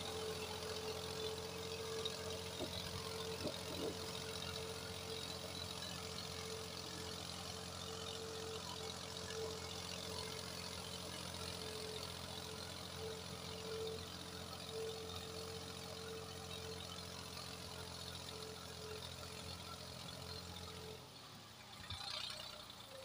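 Massey Ferguson 240 tractor's three-cylinder diesel engine running at a steady pitch as it pulls a laser land-levelling blade through loose soil; the steady engine note drops away near the end.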